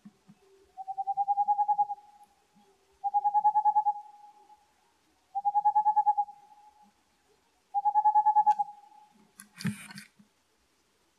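A Tengmalm's (boreal) owl singing from the entrance of a tree cavity: four phrases of rapid, evenly spaced hoots, about two seconds apart, a song a male uses to advertise a nest hole. Near the end there is a short rustling knock.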